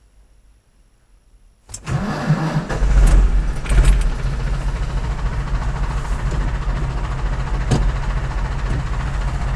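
IHC 745 tractor's four-cylinder diesel, heard from inside the cab, being cranked by the starter a little under two seconds in. It catches within about a second, runs loud for a moment, then settles into a steady idle. This is a cold start after preheating the intake air; the engine has no proper glow plugs.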